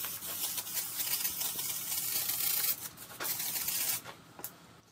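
Aerosol can of brake parts cleaner spraying onto an engine block's deck: a long, steady hiss for nearly three seconds, then a shorter burst that stops about four seconds in.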